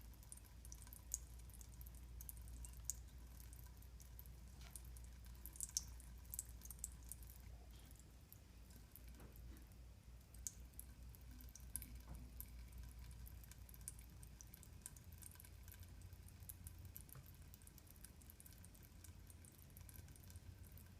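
Cat lapping water, heard as faint, irregular little wet clicks and drips over a low hum.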